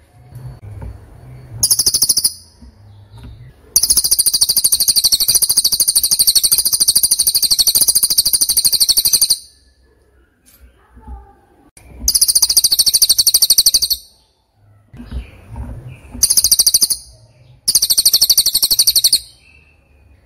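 A bird's very high, rapid trill, sung in repeated bouts with pauses between them; the longest bout lasts about five seconds.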